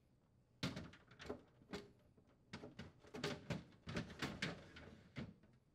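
Clear plastic crisper drawers of a Samsung refrigerator being set in and slid into place: a run of light plastic knocks, clicks and scrapes that starts about half a second in and stops near the end.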